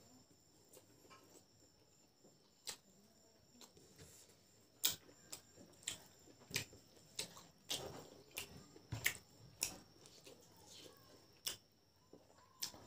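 Close-miked chewing and lip smacking while eating rice and boiled pork by hand: irregular wet mouth clicks and smacks, roughly one a second, the loudest about five seconds in.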